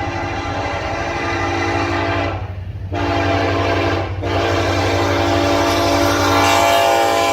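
Nathan K5LLA five-chime air horn on a BNSF locomotive blowing long blasts, with a half-second break about two and a half seconds in and a brief break about four seconds in, over a steady low rumble from the train.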